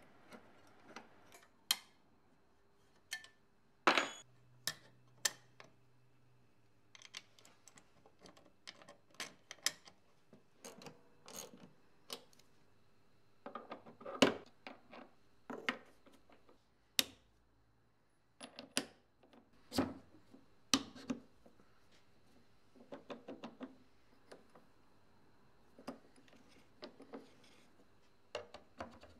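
Irregular clicks, taps and knocks of hand tools and small metal parts being handled, some with a short ring, coming in clusters with pauses between.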